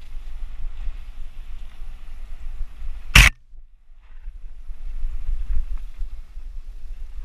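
Wind buffeting a helmet-mounted camera's microphone over the low rumble and rattle of a mountain bike rolling fast down a dirt trail. About three seconds in comes a single loud, sharp knock, after which the noise drops away for under a second and then returns.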